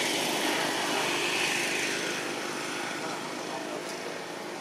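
A motor vehicle's engine running steadily, growing fainter after about two seconds.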